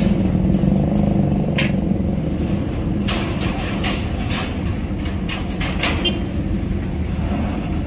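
Heavy truck's diesel engine running steadily. A series of short, sharp metallic clanks and knocks comes once about a second and a half in, then several more between about three and six seconds in.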